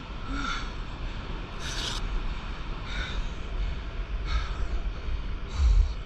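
A person breathing heavily and rhythmically, one breath about every second and a quarter. Under it runs a steady low rumble of wind on the microphone and surf.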